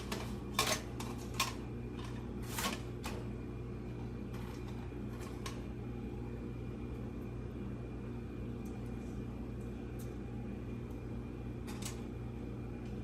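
A handful of sharp clicks and knocks from computer parts being handled in the first three seconds, then only a steady low hum.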